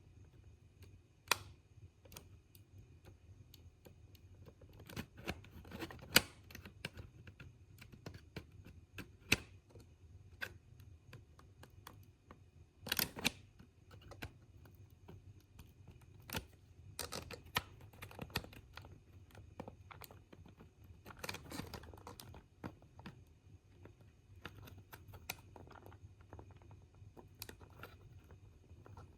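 Scattered small clicks and light scraping taps, a few sharper ones among them, from a chisel-blade hobby knife prying and twisting a plastic snowplow off a model locomotive shell. Faint, over a low steady hum.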